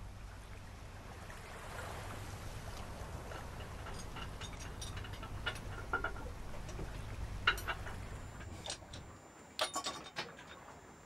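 Open-sea ambience: a steady low rumble of wind and water with scattered light creaks and clicks. About nine seconds in the rumble stops abruptly and a quick run of sharp metallic clinks follows, a hand working on a boat's engine.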